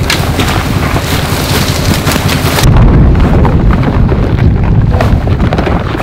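Strong wind buffeting the microphone: a heavy low rumble with hiss. About three seconds in, the hiss drops away and the rumble grows deeper and louder.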